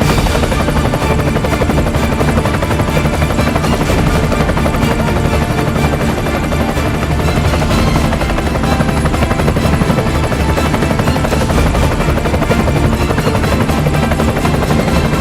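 Helicopter running steadily, its rotor making a fast, even chop.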